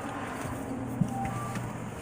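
Low steady rumble of a car, with a light knock about a second in and a faint pair of short beeps, a lower note then a higher one.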